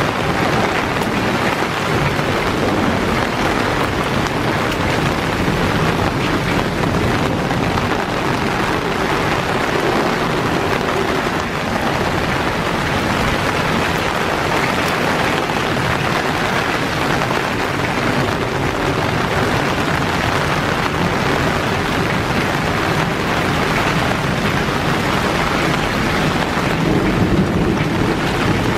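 Steady rain falling on wet shrub leaves and the ground, an even, continuous hiss that grows slightly louder near the end.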